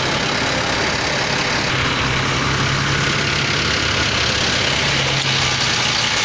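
Heavy truck engine idling, a steady low hum that grows stronger about two seconds in, over a constant hiss.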